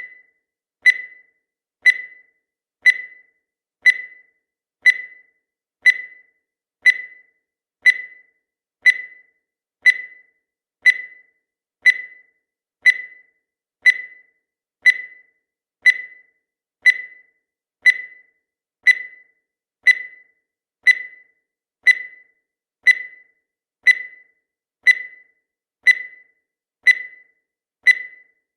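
Countdown timer's electronic beep sounding once every second: a short, high tone that dies away quickly.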